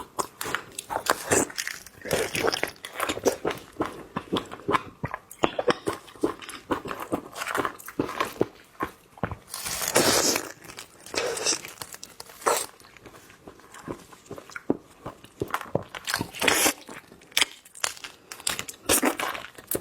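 Close-miked eating of large shrimp: bites and chewing come as irregular clicks and short bursts.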